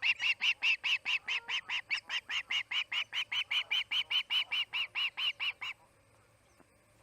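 Osprey screaming: a fast, even series of short, high calls, about five a second, that stops abruptly near the end.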